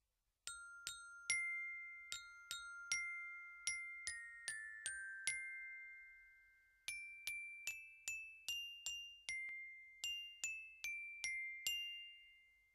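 A slow melody of single high, bell-like struck notes, glockenspiel- or music-box-like, each ringing on and fading. It plays as two phrases with a short pause about halfway through.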